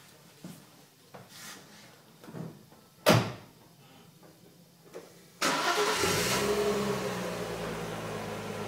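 A few faint clicks and a sharp knock about three seconds in, then the Audi 80 Cabriolet's 2.6-litre ABC V6 starts about five and a half seconds in and settles into a steady cold idle, its pitch easing slightly downward.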